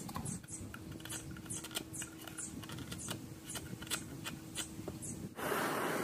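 Quick, irregular light clicks and taps over a faint steady hum. About five seconds in, it cuts abruptly to a steady rushing noise.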